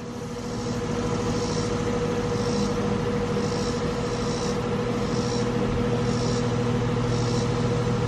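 Carrier 3-ton R-410A central air-conditioner condensing unit running in cooling, a steady hum with the rush of the condenser fan.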